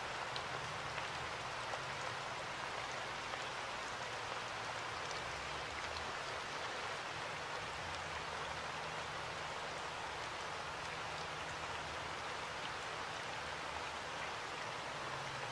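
A steady, even hiss like falling rain, with faint scattered ticks and a weak low hum underneath.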